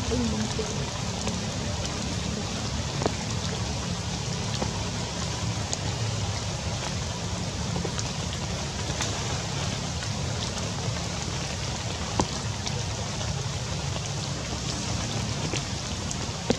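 Steady rain falling on tree foliage, with a few louder single drops striking close by, about 3 seconds and 12 seconds in.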